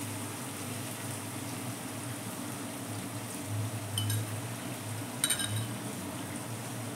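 Sliced onions frying in oil in an iron karahi, a steady sizzle, with two short ringing clinks about four and five seconds in.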